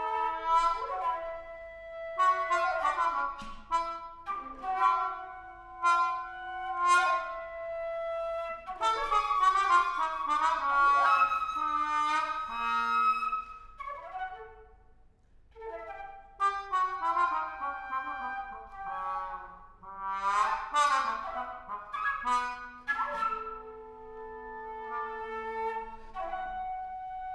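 Contemporary chamber duet of flute and muted trombone: held notes overlapping between the two, sharp accented attacks, and a few falling, sliding notes. The music almost drops out about halfway through, then picks up again.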